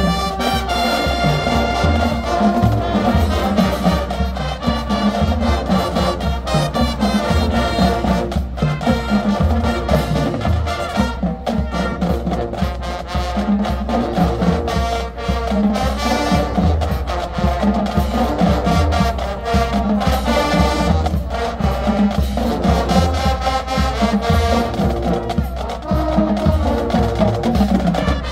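Marching band playing live on the field: brass carrying the tune over the drumline's steady beat.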